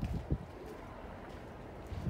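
A couple of footsteps on dirt in the first half second, then a steady low rush of wind on the microphone.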